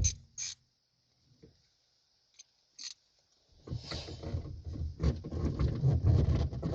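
Near silence with a few small clicks, then, about three and a half seconds in, a busy run of hand tools clicking and clattering as work starts on the 10 mm ground bolt behind the car radio.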